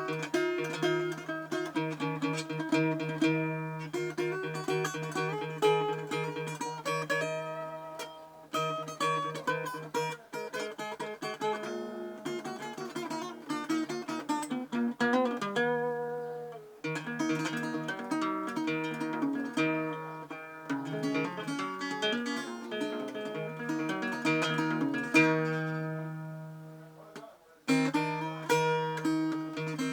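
Guitar played solo: plucked single notes and chords ringing out over a sustained low note, with a few brief pauses between phrases.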